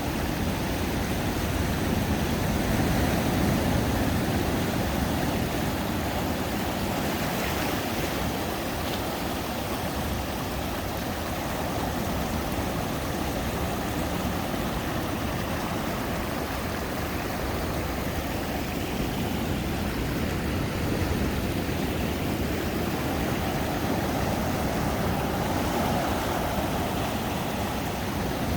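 Ocean surf washing ashore: a steady rushing noise that swells and eases every so often, with no distinct strikes.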